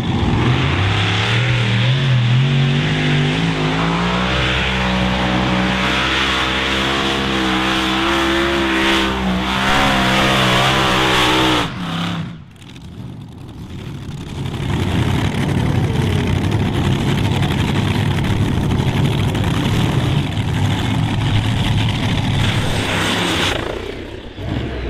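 Modified pulling tractors' racing engines at full throttle under load: the first engine note climbs in pitch over the first few seconds and then holds high and steady, cuts off about twelve seconds in, and a second tractor's engines then build up to full throttle again and keep running hard.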